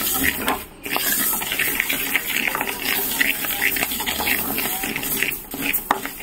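Mustard seeds roasting in a large metal pan, stirred with a wooden spatula: a dense rustle of many small ticks as the seeds shift and toast.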